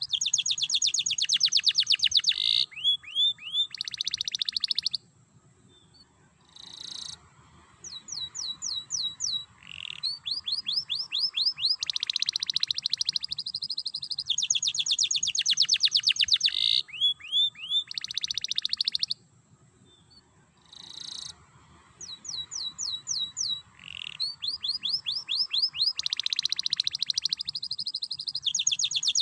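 Domestic canary singing long, fast trilled phrases of rapid high repeated notes mixed with down-slurred notes, in the rattling 'ngerek' style. The song twice drops out for about two seconds before starting again.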